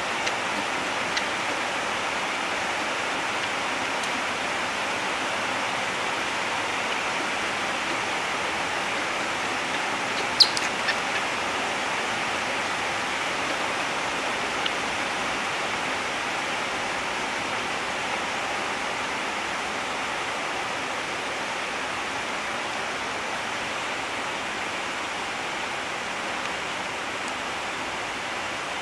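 A steady, even rushing noise with no pitch, holding one level throughout. One sharp click comes about ten seconds in, followed by a few fainter ticks.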